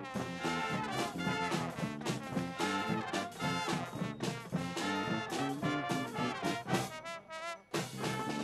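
High school marching band playing a brass-led passage of its field show, with trombones and trumpets over a steady rhythm. The sound thins out briefly about seven seconds in, then the full band comes back in.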